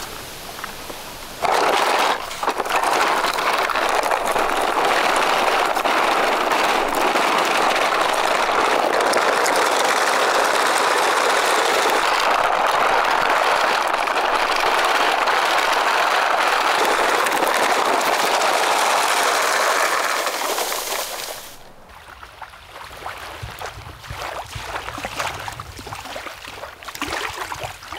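Plastic wheels of a big toy car-carrier truck, loaded with die-cast minicars, rolling over a dirt path. A steady loud rolling noise with fine crackle runs until about 21 seconds in, then gives way to much quieter sounds.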